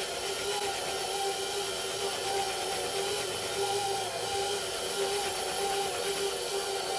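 KitchenAid stand mixer running on low, its beater creaming butter and sugar in the steel bowl: a steady motor hum with a high hiss.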